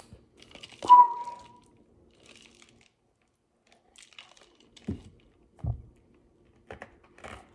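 A plastic cup of iced lemon juice being picked up and drunk from. A sharp clink with a short ringing comes about a second in, then two swallows near the middle.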